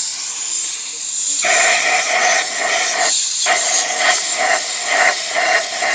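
Pressurised spray hissing in rapid pulses, about three to four a second, starting about a second and a half in with a brief break near three seconds, over a steady high hiss.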